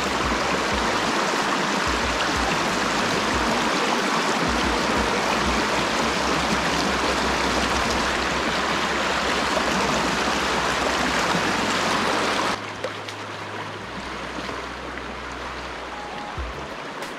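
Fast-flowing mountain trout stream rushing steadily over its bed. About two-thirds of the way through, the water sound drops abruptly to a quieter level.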